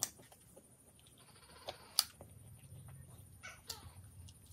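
Mouth sounds of eating pizza: faint chewing and biting, with a few sharp clicks, the loudest about two seconds in.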